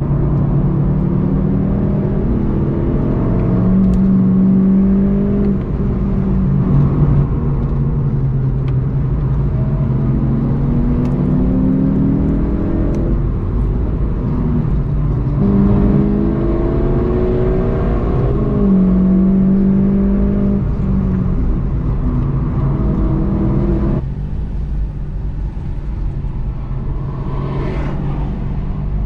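VW Golf 7.5 GTI TCR's turbocharged 2.0-litre four-cylinder driven hard on track, its revs rising and falling through gear changes. About 24 seconds in it switches to a quieter, lower engine note as the car rolls slowly.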